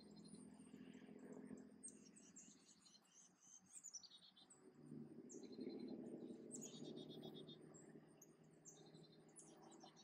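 Faint high-pitched chirps and short trills of small songbirds, scattered throughout, over a low distant rumble that swells in the middle.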